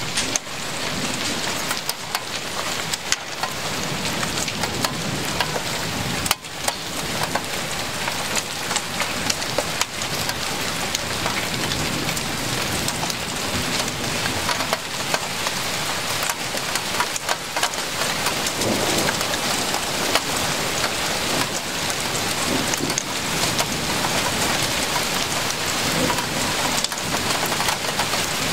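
Heavy rain pouring down steadily, with many sharp taps of drops striking close by, growing slightly heavier over the span.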